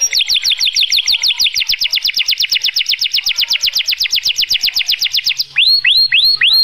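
Male domestic canary singing: a fast trill of rapidly repeated falling notes, about ten a second, changing near the end to a slower run of sweeping notes about four a second.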